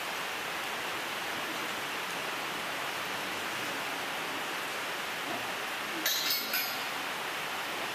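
A steady hiss, with a short cluster of metallic clinks from the steel cattle crush about six seconds in as the restrained cow shifts its head in the headgate.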